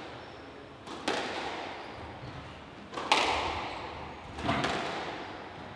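Squash ball struck by rackets and smacking off the court walls in a rally: sharp cracks about a second in, a louder double crack about three seconds in, and another about four and a half seconds in, each echoing in the enclosed court.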